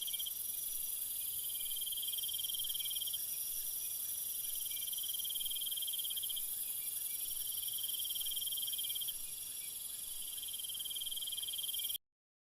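Crickets chirping in a steady, high-pitched trill whose strongest note swells and fades every few seconds, cutting off suddenly near the end.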